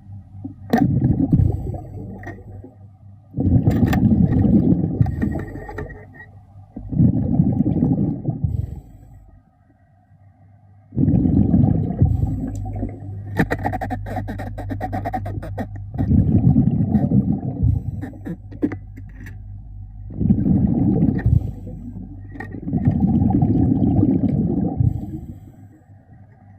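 Underwater sound of a diver breathing out: rumbling rushes of exhaled bubbles about every three seconds, eight in all, over a steady low hum, with a quick run of clicks about halfway through.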